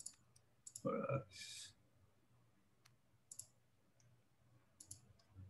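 A few scattered clicks of typing on a computer keyboard, with a brief, quiet voice sound about a second in.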